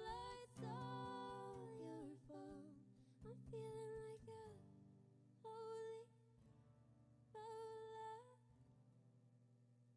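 Woman singing the slow closing notes of a song over an acoustic guitar. After about four and a half seconds the voice breaks off, then returns for two long held notes, one after another, over the guitar's ringing last chord, which fades out near the end.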